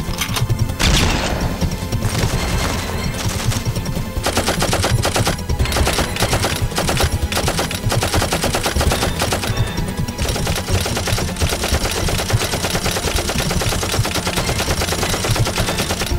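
Automatic gunfire in a shootout: long runs of rapid shots, nearly continuous, with a louder volley about a second in.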